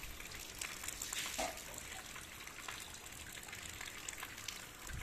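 Rainwater trickling and dripping off a roof eave, a dense patter of small drops over a steady wash of light rain.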